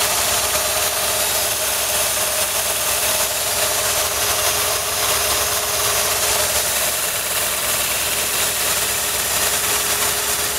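Kalamazoo 2" x 48" belt sander running with no load: its half-horsepower, 115-volt electric motor and the abrasive belt running over the pulleys make a steady hum and hiss that holds even throughout.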